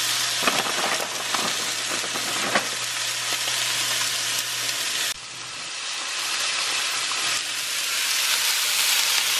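Chicken tenderloins frying in a nonstick skillet: a steady sizzling hiss, with a few light clicks in the first three seconds. About five seconds in the sizzle drops suddenly, then builds gradually louder.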